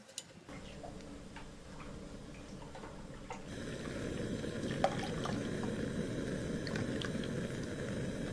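Water running, growing louder about three and a half seconds in, with a few faint clicks.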